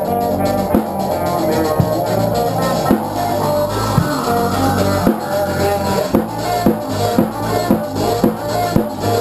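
Stoner rock band playing an instrumental passage: electric guitar, bass and drum kit, with no singing. The drum strokes come about once a second at first and grow quicker and denser after about five seconds.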